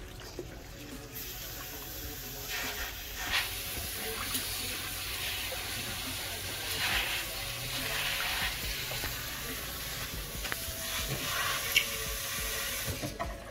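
Water running into a pedicure foot-spa basin, a steady hiss that starts about a second in and cuts off near the end, with a few light knocks.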